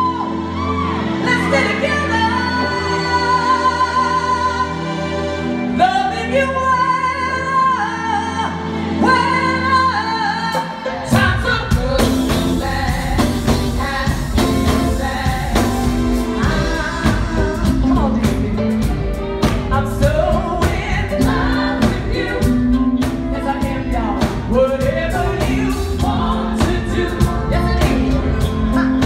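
Live band with a female lead singer and backing vocalists: sung lines with vibrato over held low bass notes, then about 11 seconds in the drums and full band come in with a steady beat under the singing.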